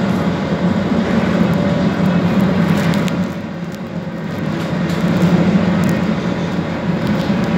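Tram running, heard from inside the passenger car: a steady rumble with a faint electric hum, quieter for about a second a little past the middle, then building again.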